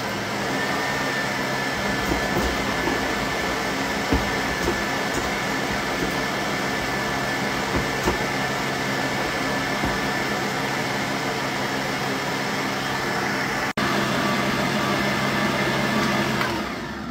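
Russell Hobbs stand mixer's motor running steadily with a high whine, its beater turning through thick blondie batter to mix in an egg in a stainless steel bowl, with a few light knocks. The motor stops near the end.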